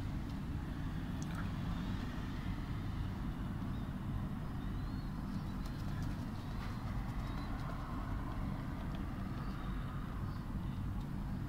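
Steady low rumble of distant city traffic, with a few faint high chirps from the dove squabs near the middle.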